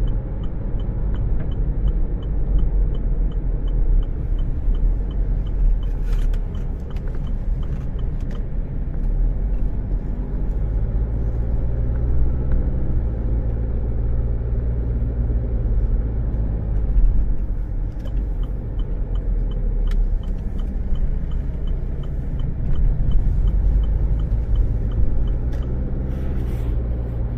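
Inside a car's cabin, the engine and tyres rumble steadily while driving. The turn signal ticks at a steady rate for the first several seconds and again for several seconds past the middle.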